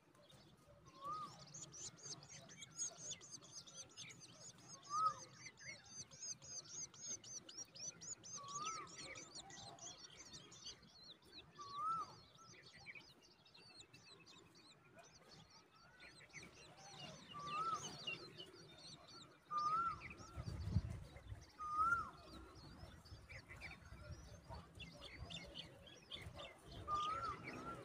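Wild birds calling: a fast run of high chirps for the first ten seconds or so, over a short, lower rising-and-falling note repeated every few seconds. A brief low rumble about twenty seconds in.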